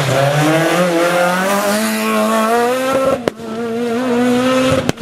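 Renault Clio rally car's engine accelerating hard, its pitch climbing for about three seconds. After an abrupt break it holds steady high revs, then cuts off again near the end.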